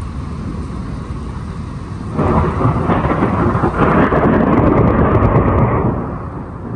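Thunder after a nearby lightning strike, over steady rain: a sudden loud peal about two seconds in rolls for about four seconds and then fades.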